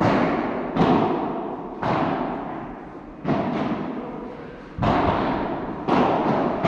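Padel rackets striking the ball and the ball bouncing during a rally: about eight sharp pops, roughly one a second, each ringing out in a long echo from the large hall.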